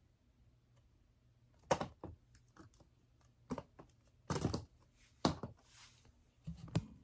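Quiet, scattered plastic clicks and knocks at irregular intervals, about six of them, as parts are fitted by hand onto the black Lego-stud rails of a minifigure display case.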